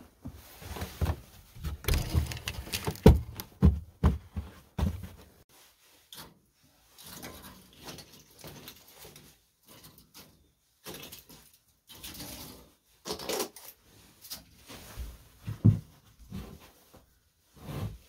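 A run of heavy knocks and thumps in the first five seconds, the loudest about three seconds in. Then quieter clicks, rustles and clunks as pine cones and kindling are loaded into the firebox of a small cast-iron wood stove.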